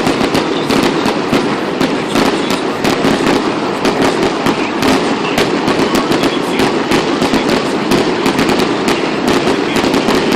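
Fireworks going off in a dense, continuous barrage of rapid crackles and pops, with no pauses.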